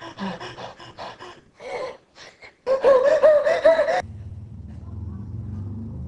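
A man's exaggerated sneeze wind-up: a run of short, sharp gasping breaths, then a loud, quavering, drawn-out vocal cry that stops abruptly about four seconds in. A low steady rumble follows.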